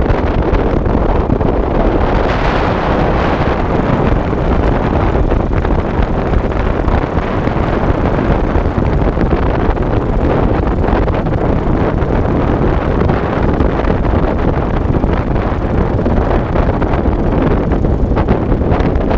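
Loud, steady wind rush buffeting the microphone of a camera riding on a moving motorcycle, mixed with the motorcycle's running noise.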